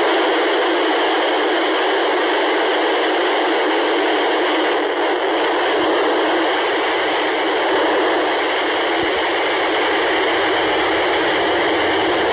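Steady static hiss from a VHF FM radio receiver with its squelch open and no station transmitting.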